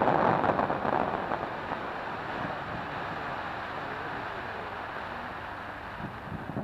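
Firework crackling dying away over the first second or so, leaving a steady, slowly fading wash of outdoor noise, with one dull pop near the end.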